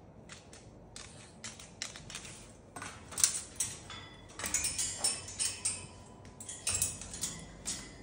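A Moluccan cockatoo's claws and beak clicking and clattering in an irregular run of sharp taps, fainter at first and louder and denser from about three seconds in as it grips and climbs the metal cage bars.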